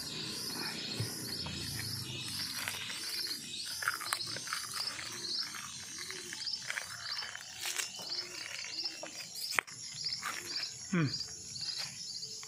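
Insects chirping steadily in the grass, a regular train of short high pulses about two a second. A sharp click comes just before ten seconds, and a short falling whine about eleven seconds in.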